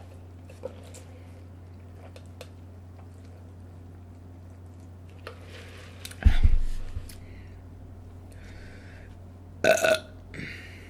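A woman burps once near the end, short and pitched, after drinking carbonated Sprite. A louder dull thump comes a few seconds earlier, with faint clicks around it.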